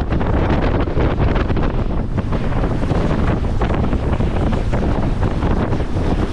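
Wind buffeting the microphone of a small boat running across the water: a loud, steady rush with ragged gusts throughout.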